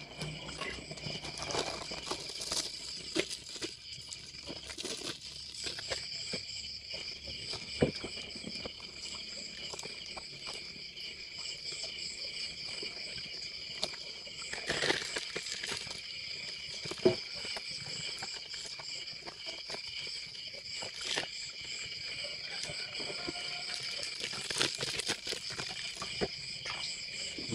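Steady high chirring of an insect chorus, with intermittent crinkling of plastic bags being filled by hand and a few sharper clicks and knocks.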